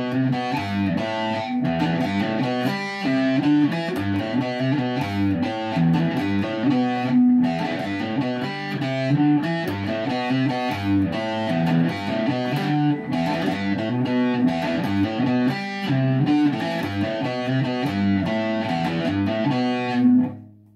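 Electric guitar being played solo, a busy, continuous line of notes and chords that stops suddenly near the end.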